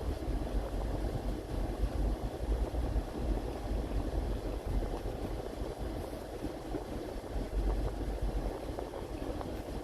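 Steady low rumble and hiss of a vehicle driving on rain-wet roads, tyre and engine noise with a wash of water.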